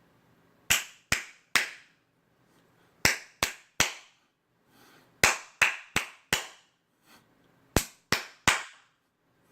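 Hand claps, one hand smacking into the other's open palm, in quick sets of three about a third of a second apart, with a pause of about a second between sets; one set has four claps.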